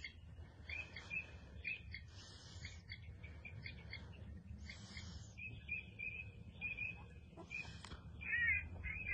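Birds calling in runs of short, high chirping notes, busiest and loudest near the end, over a low steady rumble.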